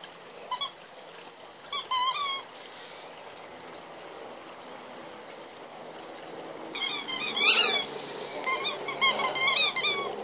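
Squeaky ball toy squeaking as a dog bites on it: a short squeak, a couple more about two seconds in, then a quick run of squeaks from about seven seconds in. The squeaks are high-pitched and wobble up and down.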